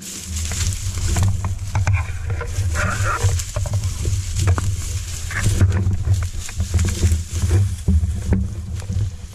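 Dense cane and brush rustling and crackling as someone pushes through it, over a heavy low rumble of handling noise on the microphone.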